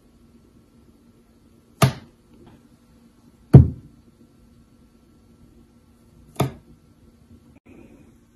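Four sharp knocks or bangs, spaced about two seconds apart, over a faint steady hum.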